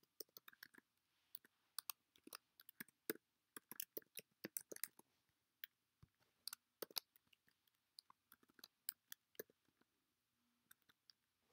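Computer keyboard typing: faint, irregular keystroke clicks in quick runs, as an email address and then a password are keyed in, thinning out near the end.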